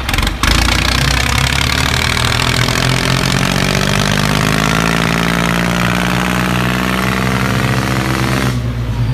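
A motor running steadily, a low pitched hum with hiss over it. It starts abruptly just under half a second in, and the hiss drops away near the end while the low hum goes on.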